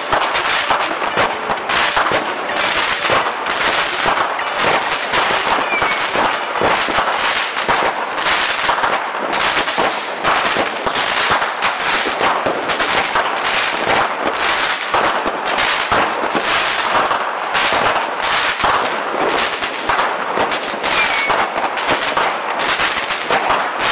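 Fireworks going off in a rapid, unbroken stream of sharp bangs and crackles, several a second.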